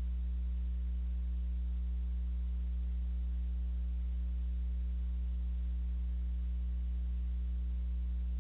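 Steady low electrical mains hum with a faint hiss from the security camera's audio, unchanging throughout; no other sound.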